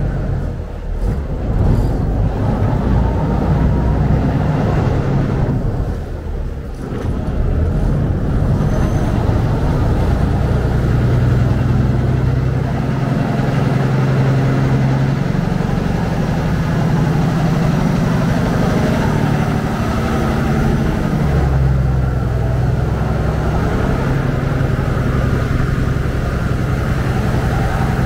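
Saen Saep canal express boat's engine running under way, a loud steady drone whose pitch rises a little about halfway through and drops back a few seconds later, with water rushing along the hull from the boat's wake.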